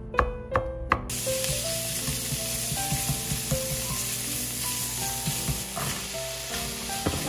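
A kitchen knife chops three times on a bamboo cutting board, mincing ginger and garlic. About a second in this gives way to a steady sizzle of minced pork, ginger and garlic stir-frying in a non-stick frying pan, with a spatula scraping and stirring and a short clatter as green beans are tipped in near the end.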